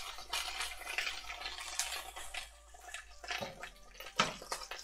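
Sausages frying in hot fat in a pan, a steady crackling sizzle with many small pops as the fat spits out of the pan, and one sharper pop about four seconds in.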